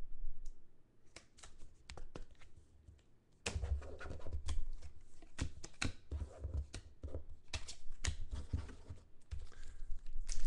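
Trading cards, a rigid plastic top loader and foil card packs handled on a tabletop: scattered small clicks, taps and scrapes, sparse at first and busier from about three and a half seconds in.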